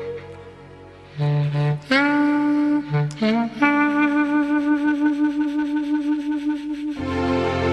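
Slow instrumental background music: a solo wind instrument plays long held notes, and a fuller accompaniment comes in near the end.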